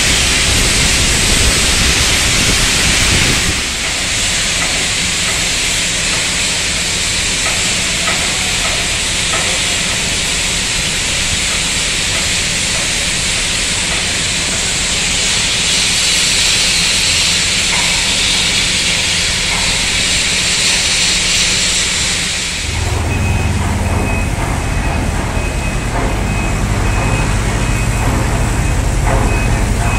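High-pressure water jet hissing steadily as a ship's hull is washed down in dry dock. About two-thirds of the way in, the hiss gives way to a boom lift's engine running close by, with a steady high beep.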